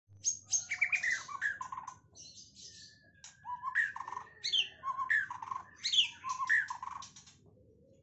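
Young white-rumped shama (murai batu) singing a loud, varied song of quick whistles, sweeping notes and trills in two bursts, with a short lull about two to three seconds in. The song is rich in phrases mimicked from other birds such as ciblek, canary and tengkek.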